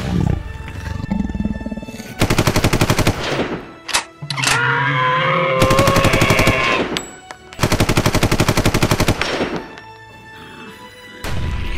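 Machine-gun sound effect fired in three rapid bursts, each about a second long.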